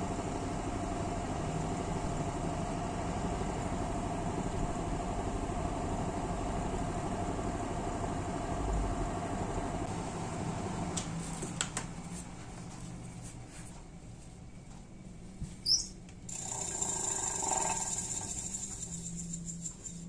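Gree air-conditioner condenser fan's double-ball-bearing motor spinning a 16-inch plastic blade: a steady rush of air over a motor hum. About ten seconds in it winds down and the sound fades, with a short high chirp near the end.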